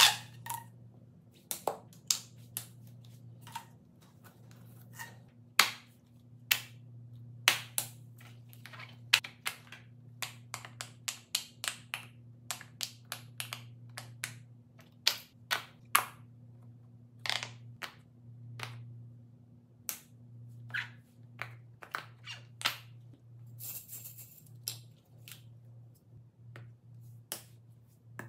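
Fidget toys being handled and set down on a foam board: many sharp clicks and taps at irregular intervals, over a low steady hum.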